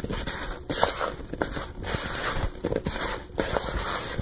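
Hand tossing and stirring cut okra slices in a bowl of dry cornmeal: a gritty rustling and scraping that comes in uneven strokes.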